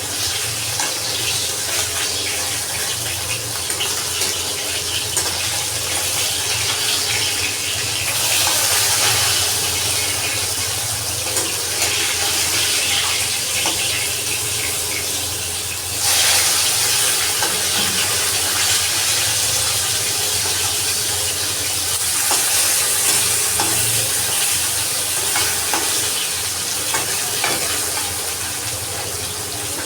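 Hot oil sizzling in a pan as food fries, a steady sizzle that gets louder at about 8 seconds and jumps up suddenly at about 16 seconds.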